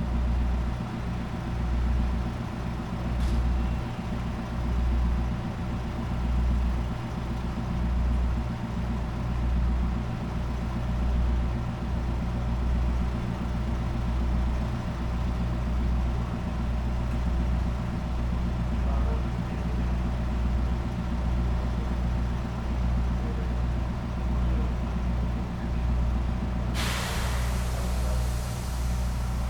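Diesel train engine idling at a standstill, with a slow, even throb about every second and a half. About 27 seconds in, a loud hiss of compressed air starts and keeps going.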